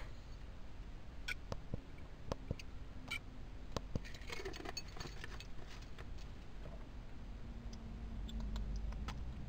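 Low rumble of a moving car heard from inside the cabin, with scattered small clicks and taps.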